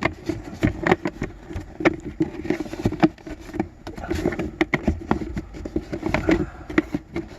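Irregular plastic clicks and knocks from handling the glove box and cabin-filter cover trim of a car interior, over a steady low hum.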